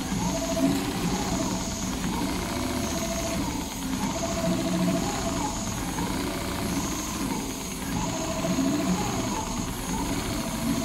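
Richpeace large-format CNC automatic sewing machine running, stitching a pattern into a sheet held in its clamping frame. It makes a steady mechanical noise, with a whine that comes and goes every second or two and short rising and falling whirs as the sewing head moves and changes direction.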